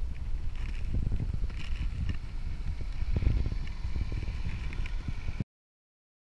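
Low, irregular rumble and knocking on a camera moving along the trail, with some hiss. It cuts off suddenly to dead silence about five seconds in.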